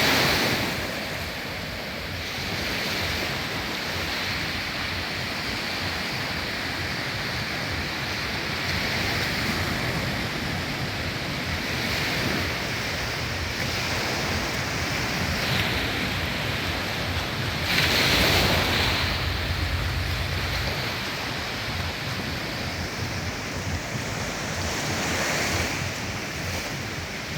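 Sea waves breaking and washing up the shore, with a louder break every several seconds, the strongest just past the middle. Wind buffets the microphone with a low rumble at times.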